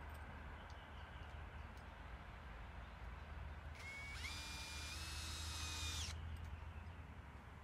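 A power drill runs for about two seconds partway through, a high whine that steps up slightly in pitch and then cuts off.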